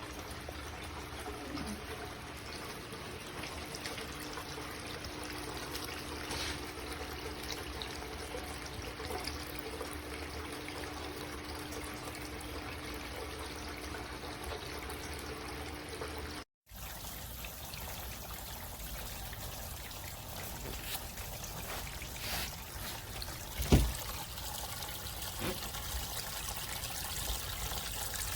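Glenville cascading water fountain running, its water trickling and pouring steadily down the tiers. One sharp knock comes about three-quarters of the way through, and the sound cuts out for a moment just past halfway.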